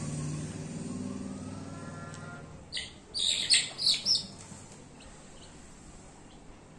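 A pet bird chirping: about four short, high calls in quick succession about three seconds in, after a faint low hum fades away.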